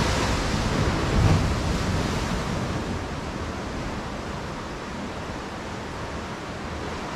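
Pacific Ocean surf washing in, a steady rush of waves that swells about a second in and then eases off a little.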